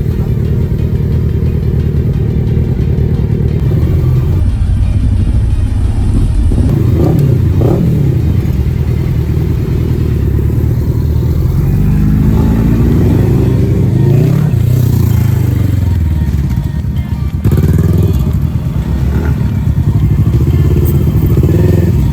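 Motorcycle engine running, with the pitch rising and falling several times between about twelve and sixteen seconds in.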